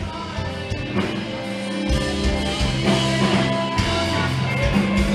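Rock music with guitar and drums, held bass notes under a steady beat.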